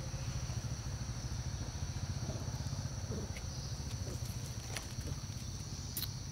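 Steady low engine rumble with an even, rapid pulse, under a steady high-pitched hiss, with a few faint clicks.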